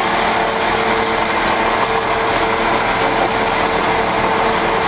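RA2 diesel railbus moving past along the platform, its diesel engine running steadily with a steady hum over the rolling noise.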